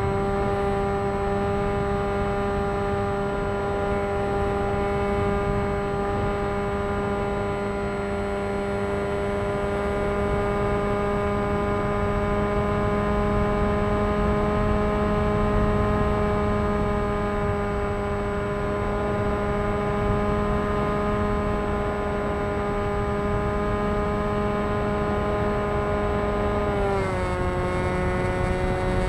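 Electric motor and propeller of an FT Explorer RC model plane in flight, a steady whine recorded on board with wind rushing past. About 27 seconds in, the pitch drops a step as the throttle is eased back.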